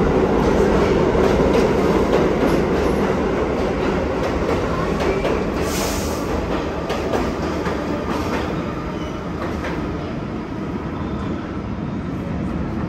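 Pullman-Standard R46 subway train pulling out of an underground station, its wheels clacking over rail joints as the cars pass and its rumble slowly fading as it leaves. A brief high hiss sounds about six seconds in.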